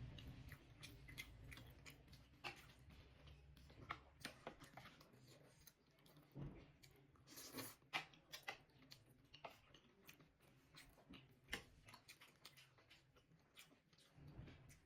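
Faint chewing and wet mouth clicks of someone eating momo dumplings, close to the microphone, in irregular short smacks.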